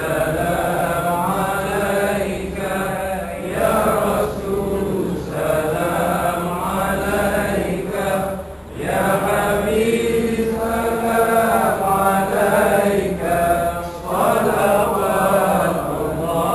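A group of men chanting together in unison, in long drawn-out phrases with a short break about every five seconds.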